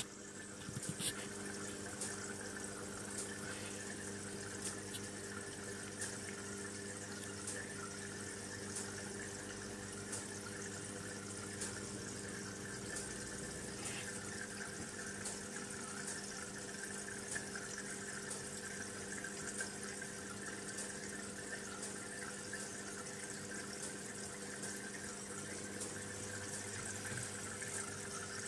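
Aquarium filter running: a steady trickle of moving water with a low hum from its motor and faint scattered ticks.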